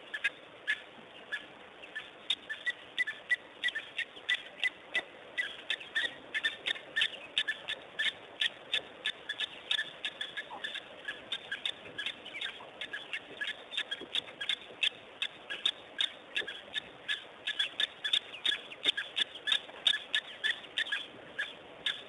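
Small birds chirping: many short, sharp chirps, several a second, coming irregularly over a faint steady hiss.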